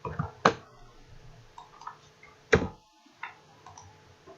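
Computer keyboard keystrokes and mouse clicks: a few sharp clicks, the loudest about half a second in and about two and a half seconds in, with lighter ticks between.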